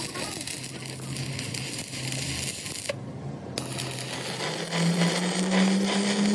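Electric arc welding on a steel truck axle beam: the continuous frying crackle of the welding arc as the electrode burns along the seam. The crackle breaks off for about half a second past the middle, and a steady low hum joins for the last second or two.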